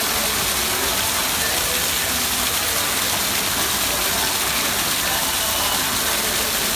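Water of a fountain falling in streams and splashing into its pool, a steady loud gush.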